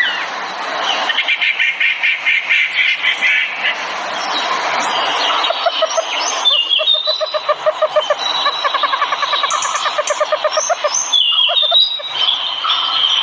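Several songbirds singing at once: fast trills of rapidly repeated notes overlapping with short whistled phrases.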